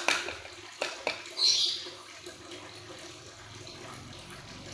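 A few sharp taps and a short hiss in the first two seconds, then a motorbike engine's low hum that grows slowly louder from about halfway.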